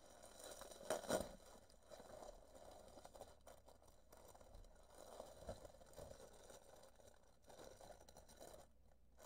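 Faint, heavily muffled crinkling and rattling of bubble wrap and plastic packaging being torn open and handled, with a louder crackle about a second in.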